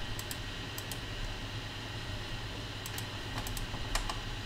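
A few computer mouse clicks, several of them as quick double clicks, over a steady low hum of room noise.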